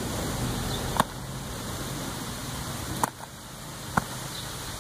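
Kicks and punches landing on a sparring partner's gloved arms and body: a few sharp hits, one about a second in, a quick double near three seconds, and a kick striking the raised arms about four seconds in.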